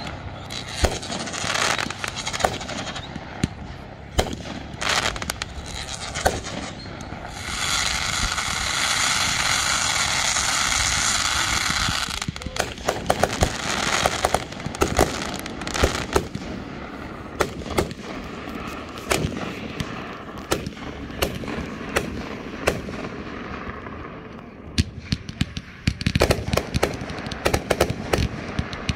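Fireworks going off: a string of sharp pops, a steady hiss for about four seconds about a quarter of the way in, and fast crackling near the end.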